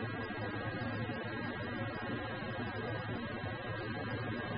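A steady low hum with an even hiss and a faint constant high-pitched whine, unchanging throughout.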